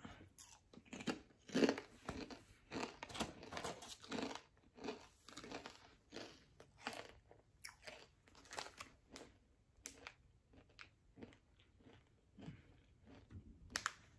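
Crunchy spicy chips being bitten and chewed: a long run of irregular crunches.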